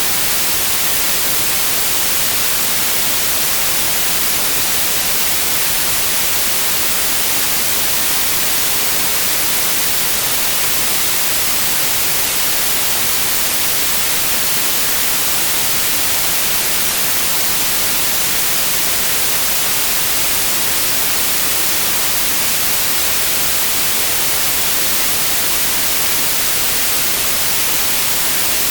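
Steady, unchanging white noise: an even hiss across the whole range, strongest in the highs.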